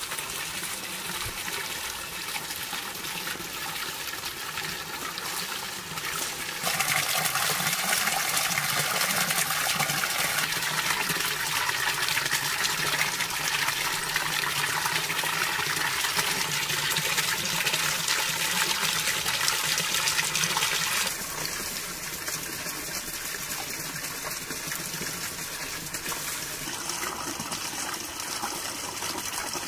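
Water pouring from a spout and splashing steadily into a stone trough. It grows louder about a quarter of the way through and drops back about two-thirds of the way.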